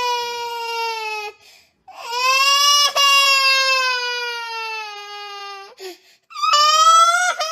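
A child crying in long drawn-out wails, three of them with short breaks between, each held for a few seconds and slowly sinking in pitch: exaggerated, theatrical crying.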